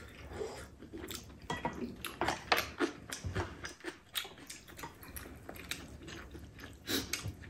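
Close-miked eating sounds: people biting and chewing food, heard as an irregular run of short, sharp clicks and crunches.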